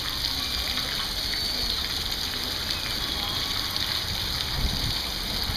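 Fountain water spraying and splashing steadily into a shallow pool, a continuous even rush of falling water.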